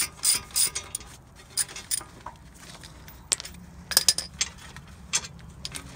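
Hand tools and steel brake parts clinking: about a dozen irregular, sharp metallic clicks and clinks as the brake-line bracket's 10 mm bolt is taken out and the caliper is handled.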